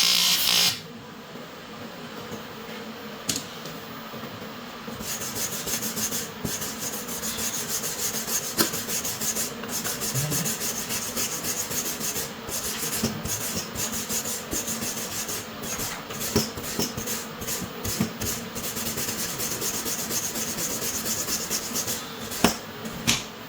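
A loud hiss cuts off within the first second. From about five seconds in comes a steady rasping rub of a hand tool worked across a metal workpiece, with a few sharp ticks near the end.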